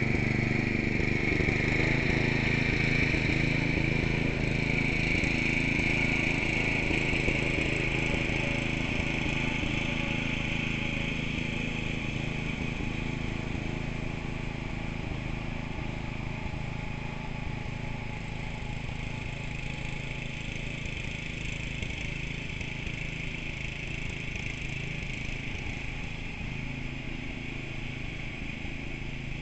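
Riding lawn mower engine running steadily, slowly fading as the mower moves away.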